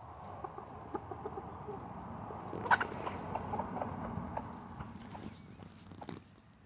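Bantam hens clucking softly as they peck at scrambled eggs, their beaks tapping quickly on a paper plate and wooden boards, with one louder sharp peck nearly three seconds in.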